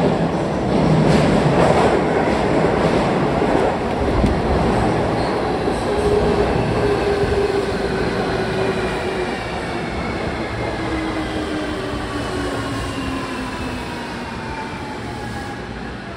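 A JR Kyushu 305 series electric train pulling into an underground subway platform. It rumbles loudly with repeated wheel clicks over the rail joints as it enters. The whine of its traction motors then falls steadily in pitch as it brakes toward a stop.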